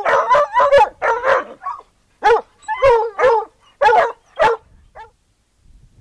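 Hound dog barking at a chain-link fence: a quick run of short barks, two to three a second, with a brief pause about two seconds in. The barking stops about four and a half seconds in.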